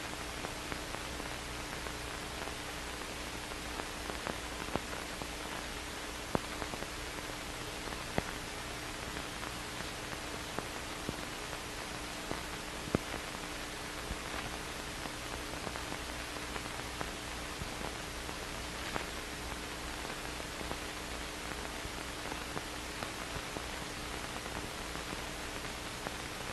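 Low steady hiss of an old film soundtrack with nothing recorded on it, sprinkled with small clicks and pops, a few of them louder, over a faint steady hum.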